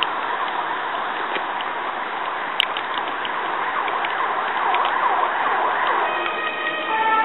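Heavy rain falling in a steady downpour, with a faint emergency-vehicle siren wailing through it. One sharp click about two and a half seconds in.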